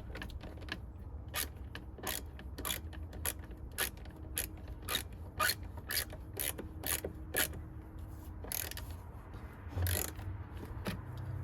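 Hand ratchet clicking as the nut on a car battery's negative terminal clamp is tightened, about two clicks a second, with a few last clicks near the end.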